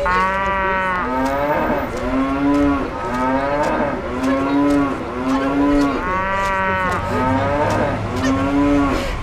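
Cow-like mooing in a quick run of about ten short calls, each rising and falling in pitch, used as the voice of a cow-masked character and subtitled as his speech.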